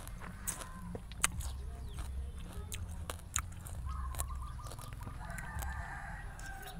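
Close-miked eating of wild grapes: sharp clicks and smacks of chewing. A fowl calls in the background from about two-thirds of the way through.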